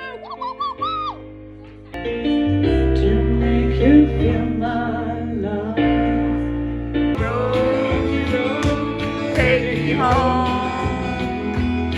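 A song with singing and guitar. It starts with gliding melodic lines, and the full band with a strong bass comes in about two seconds in.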